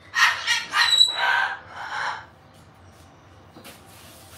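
A parrot vocalising in a run of about five short chattering calls over the first two seconds, one with a brief high whistled tone. After that there is a quiet room with a couple of faint clicks.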